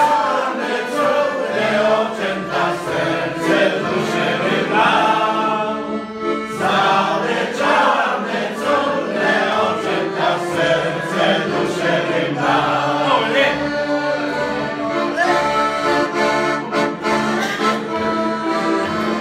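Piano accordion playing a tune while a group of people sing along, with a short break about six seconds in.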